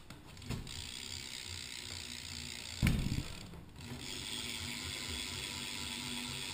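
Mission Function rear cassette hub freewheeling, its pawls clicking in a fast, quiet ratchet buzz as the wheel spins. A knock about three seconds in briefly breaks it, then the clicking picks up again.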